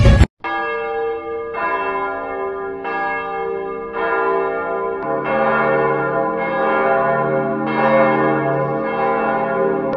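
Church bells ringing, with a new strike about every second and a quarter and the tones overlapping as they ring on. The sound starts abruptly after a brief break.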